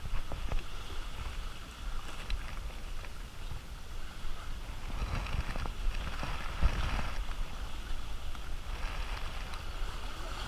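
Wind buffeting the microphone in a gusting low rumble, with rustling as a life vest is handled, loudest about halfway through and again near the end.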